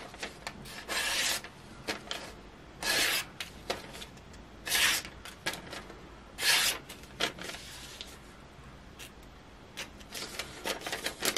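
Kizlyar hatchet's edge worked in short scraping strokes, four clear ones about two seconds apart, with light clicks between and a few smaller strokes near the end: the last strokes of sharpening the blade.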